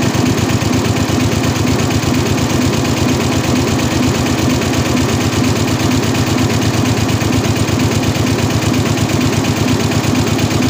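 Richpeace roll-to-roll multi-head quilting embroidery machine running, its row of needle heads stitching together in a rapid, even mechanical clatter.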